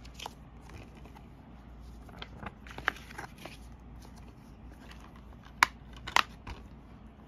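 Handling of a plastic DVD case and its paper insert: light rustles and small clicks, then two sharp plastic clicks about half a second apart as the case is snapped shut.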